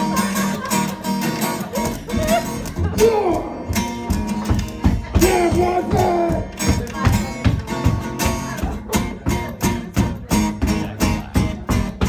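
Live acoustic guitar music with wavering, sliding higher notes. From about halfway through, the guitar is strummed in an even rhythm of about two to three strokes a second.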